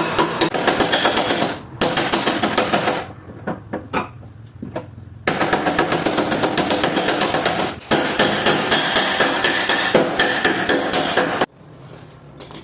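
Rapid light hammer taps on a car's sheet-metal fender with a paintless dent repair tap-down tool, knocking down high spots. They come in runs of several taps a second that stop abruptly, with a quieter stretch of scattered taps in between.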